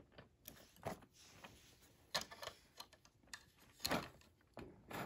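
Hard plastic toy parts of a Transformers Siege Ultra Magnus figure being handled and tabbed into place: several separate sharp clicks and small clacks spread over a few seconds.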